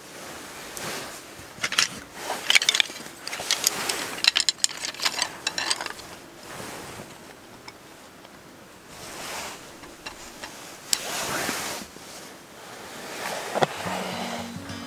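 Wooden slats and frame of a folding roll-top camp table clicking and clattering as it is handled and assembled, with rustling in between. Background music comes in near the end.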